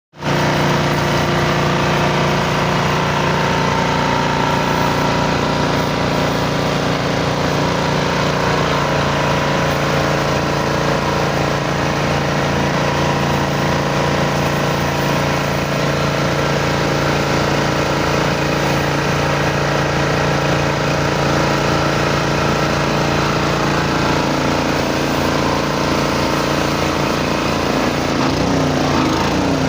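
Generator engine running at a steady speed, an even mechanical drone with a strong low hum.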